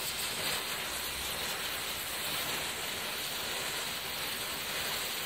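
Leslie Destruction Disc ground firework burning with a steady hiss as its composition and central bengal flame burn down.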